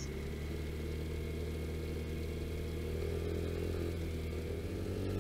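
Vespa GTS scooter's single-cylinder four-stroke engine running steadily on the move. The engine note shifts slightly near the end.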